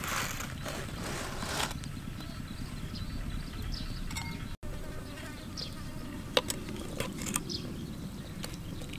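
Flies buzzing steadily around the food. Near the start there is a scrape as the lid comes off a clay cooking pot, and later a few light clinks of a metal spoon against the clay pot.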